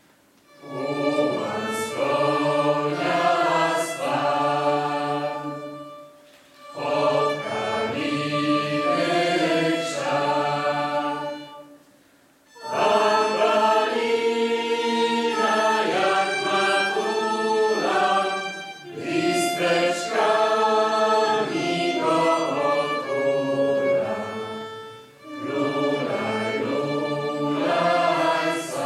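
Mixed choir of a Polish folk song-and-dance ensemble, men and women, singing a song in long phrases with short breaks between them.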